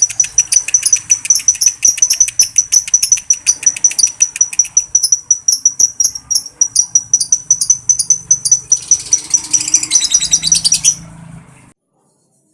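Lovebird 'ngekek': a long, unbroken run of rapid, shrill chattering notes, repeated many times a second, that stops abruptly about eleven seconds in.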